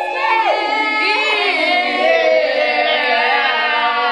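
Young girls singing a song, voices gliding between long held notes.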